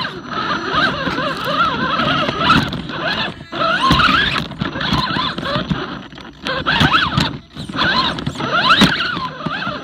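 Axial Wraith RC rock crawler's electric motor and geared drivetrain whining close to the onboard camera. The pitch rises and falls with the throttle, and the whine cuts out briefly about three times as the truck stops and starts.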